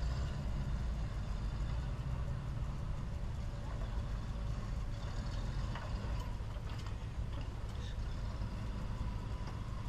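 Engine of a lifted off-road 4x4 running at low revs with a steady low rumble as it crawls slowly over a rocky dirt ledge.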